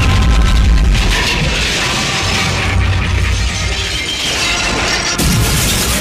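Battle-scene soundtrack: a shell explosion with a deep, sustained boom, mixed with background music, and another sudden blast about five seconds in.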